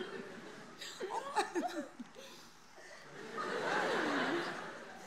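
Audience laughter at a comedy sketch: a few short vocal bursts about a second in, then a louder swell of laughter lasting about a second and a half in the second half.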